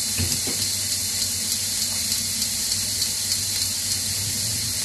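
Broccoli florets sizzling in hot olive oil in a heavy grill pan, a steady hiss with a run of small sharp ticks about three a second.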